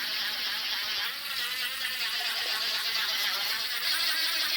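DeWalt 20 V brushless impact driver spinning a Hart toilet-bowl brush attachment in the bowl water: a steady motor whir under a continuous swishing, churning of water.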